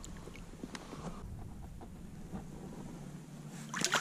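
Light water lapping and dripping beside a kayak hull, then near the end a sudden loud splash as a large fish kicks free at the surface on release.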